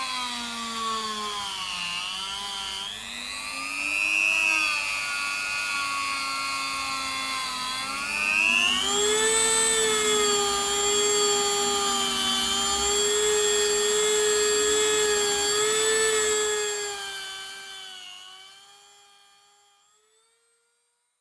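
HILDA JD3321C variable-speed rotary tool spinning a wire brush bit, its motor whining. The pitch dips and rises in the first few seconds, holds high and steady for several seconds, then falls as the tool winds down and fades out near the end.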